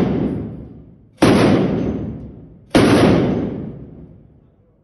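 Heavy machine gun firing loud single shots about every one and a half seconds, each fading in a long echo.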